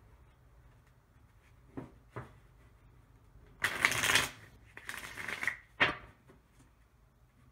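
A deck of tarot cards being shuffled by hand: two light taps, then two spells of dense card-on-card rustling around the middle, and a sharp tap near the end as the deck is knocked square.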